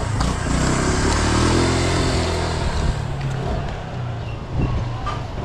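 A motor vehicle's engine running close by, loudest in the first three seconds and then fading into the hum of the street. A short knock about four and a half seconds in.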